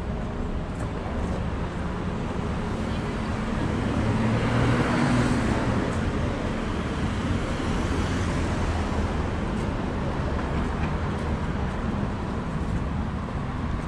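Street traffic noise with a steady low hum of engines; one vehicle passes close by about five seconds in, swelling and fading.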